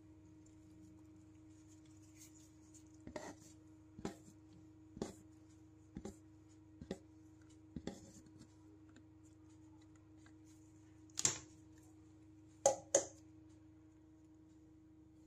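Clear plastic blender jar knocking against the rim of a plastic bowl while thick banana batter is shaken out of it: short knocks about once a second for several seconds, then three louder knocks near the end, over a faint steady hum.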